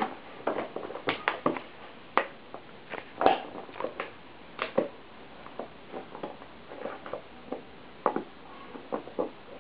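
A shar-pei playing with a bottle: irregular clicks and crackles as the bottle is bitten, pushed and knocked about, with a few louder snaps.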